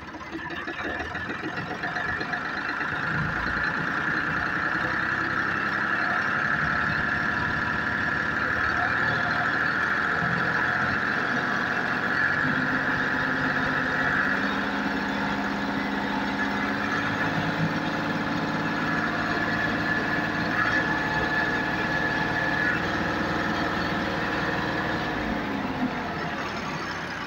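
1979 Ford tractor engine running, revved up from idle over the first few seconds to about 2000 rpm and held there, then easing back down near the end.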